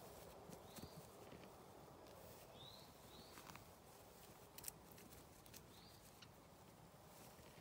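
Near silence with faint scattered taps and rustles from baby goats' hooves hopping on straw and a wooden pallet, one sharper tap a little past halfway. A bird chirps faintly in short high notes about five times.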